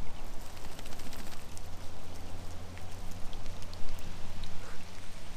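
Steady rain, with many close drops pattering on leaf litter and the river surface. A steady low hum runs underneath.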